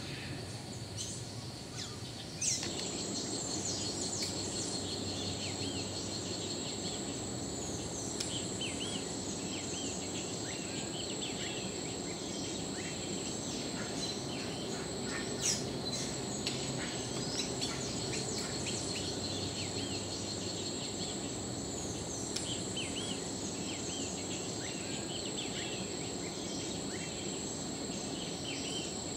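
Tropical rainforest chorus: a steady, high-pitched insect drone runs under many short bird chirps and calls scattered throughout, with a couple of sharp clicks.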